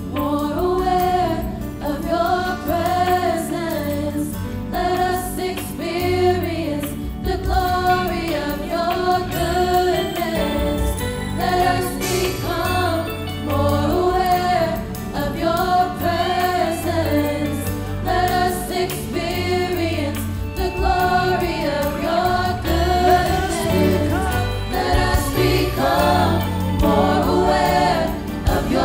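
Worship team of several singers singing together into microphones over a live band with acoustic guitar.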